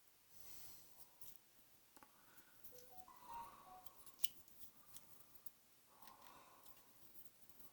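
Faint, scattered clicks and taps of small plastic model-kit parts being handled and fitted, the sharpest about four seconds in.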